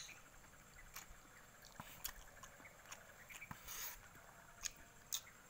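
Near silence with a few faint, scattered clicks and a brief soft hiss a little before four seconds in.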